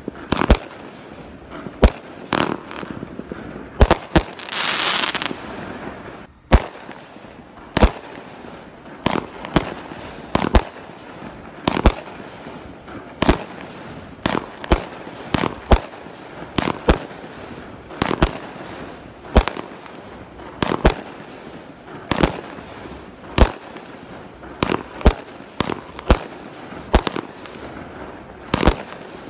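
Consumer multi-shot fireworks cakes (Bear Dropper, then Kilt Lifter) firing: a steady run of sharp launch thumps and bursting reports, one or two each second, with a short hissing rush about four to five seconds in.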